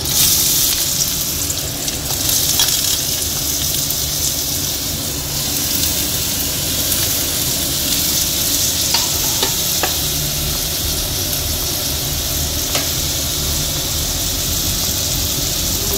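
Chopped vegetables frying in hot mustard oil: a sudden loud sizzle as they drop into the pan, settling into a steady sizzle with a few faint ticks.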